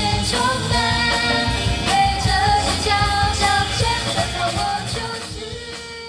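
Live band playing a pop song with a lead singer, guitar and drums, fading out over the last second or so.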